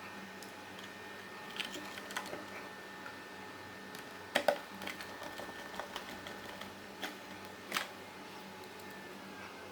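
Scattered light clicks and knocks of small parts being handled during power supply reassembly, over a faint steady hum. The loudest is a quick double knock about four and a half seconds in, with another sharp knock near eight seconds.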